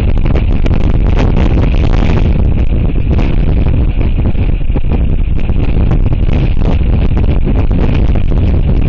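Strong gusty wind buffeting an outdoor camera microphone: a loud, steady rumble that flutters as the gusts come and go.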